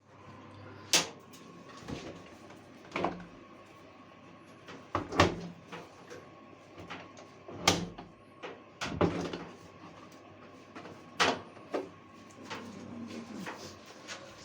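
Irregular clicks and knocks of a washing machine door and its door lock being handled during a lock replacement, about eight sharp ones spread out with quieter handling noise between.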